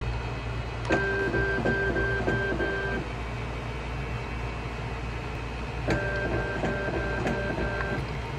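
Leica ST4020 linear slide stainer's motorised slide-transport mechanism running its processing cycle: two runs of about two seconds each, a second and about six seconds in, each a string of six short pitched motor pulses, about three a second, over a steady low hum.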